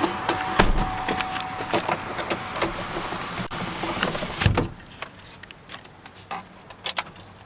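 Outside traffic noise coming in through an open pickup door, then the Chevrolet Colorado's door shutting with one solid thump about four and a half seconds in, after which the outside noise is muffled.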